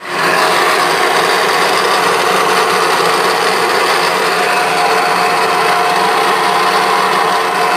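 Ice-O-Matic ice machine running with a loud, steady mechanical noise from its motor, the sign of a blown motor ball bearing (a 6203).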